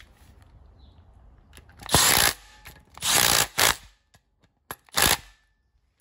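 Four short bursts of mechanical clatter from hand work on the timing-chain end of an engine. The first and loudest comes about two seconds in, two more close together come about a second later, and the last comes near the end.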